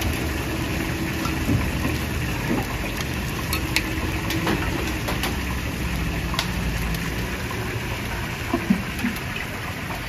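Steady low mechanical hum at a street-food cooking stall, with a few sharp metal clinks of utensils.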